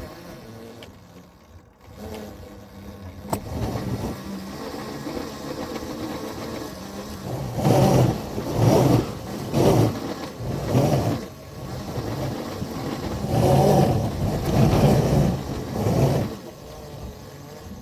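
Two locomotives pushing a plow into deep snow under power. A low running sound builds, then breaks into a rhythmic pulsing about once a second through the middle and later part. It falls back near the end as they stall.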